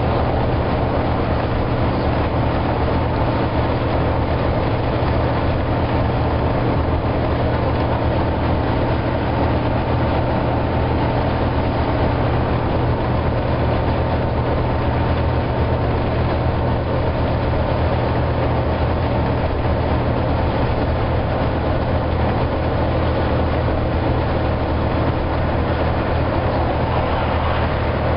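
Volvo B9TL double-decker bus at motorway speed, heard from inside the passenger cabin: its Volvo D9B six-cylinder diesel is working hard under a steady load, mixed with the hoover-like whine of the engine cooling fan and a constant rumble of tyres and road. The drone stays even and does not change pitch.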